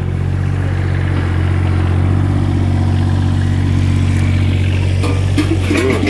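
Takeuchi mini excavator's diesel engine running steadily, with a few knocks and some clatter near the end.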